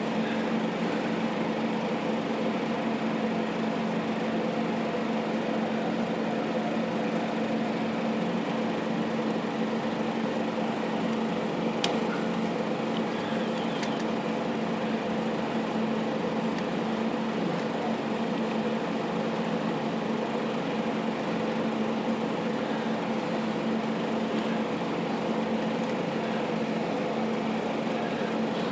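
Steady mechanical hum, like a fan or air-conditioning unit running, with a couple of faint clicks about twelve and fourteen seconds in.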